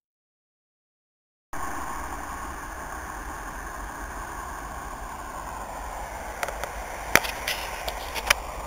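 Silence for about a second and a half, then a steady outdoor rush of road traffic and wind on the camera microphone starts abruptly. A few sharp clicks come near the end.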